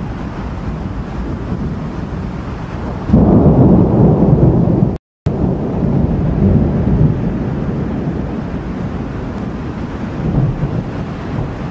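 Thunder from a lightning storm: a low rumble that swells suddenly and loudly about three seconds in, cuts out for a moment, then rolls on more quietly.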